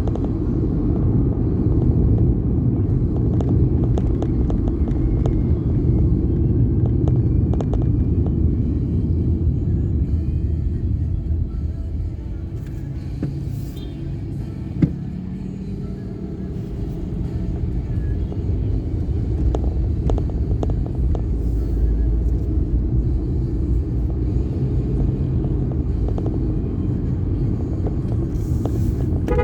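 Steady low rumble of a vehicle on the move, easing off for a few seconds midway, with a single sharp click about halfway through.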